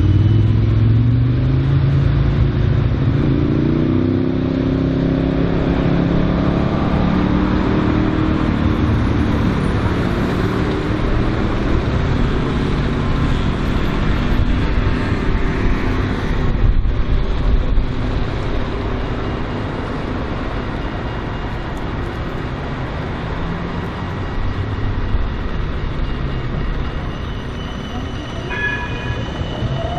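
Siemens Combino tram pulling away from a stop, its motors whining upward in pitch as it gathers speed, over steady road traffic noise.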